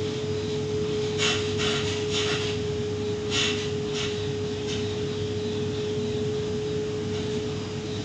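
Inside a Waratah Series 2 electric train carriage while it runs: a steady rumble with one constant humming tone. Several short high squeaks and creaks of the carriage rubbing come about one, two and three and a half seconds in.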